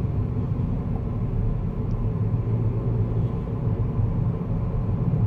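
Steady low rumble of a car driving at road speed, heard inside the cabin: engine and tyre noise with no sudden events.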